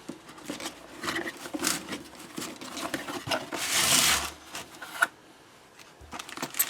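Cardboard box being opened and its contents handled: irregular rustling, scraping and small knocks, with a longer rasping scrape about three and a half seconds in and a sharp click about five seconds in.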